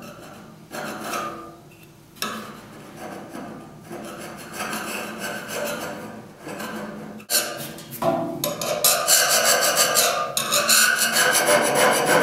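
A flat metal blade scraping back and forth over a steel mounting pad on a machine stand. The strokes come in short, separate runs at first; from about seven seconds in they become a louder, rapid run of many strokes a second.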